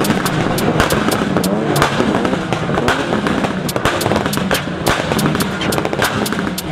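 Car engines revving up and down, with a rapid, irregular string of sharp exhaust pops and crackles.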